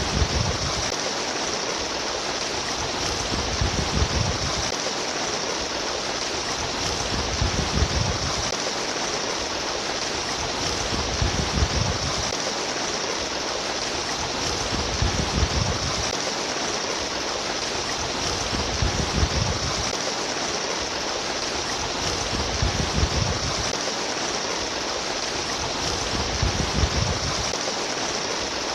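Flowing stream water, a steady rushing and babbling, with a low surge that comes round about every four seconds.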